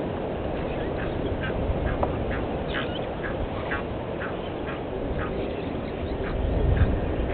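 An animal calling with short, quacking notes, about two a second, over a steady low background rumble.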